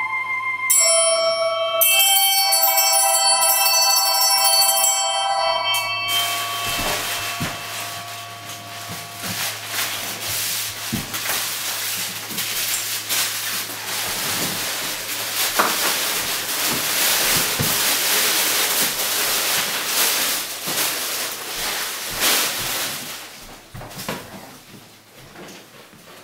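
A gentle chiming melody on bells or mallet percussion plays and stops about six seconds in. It gives way to a long, steady rustling hiss with a few faint knocks, which fades out near the end.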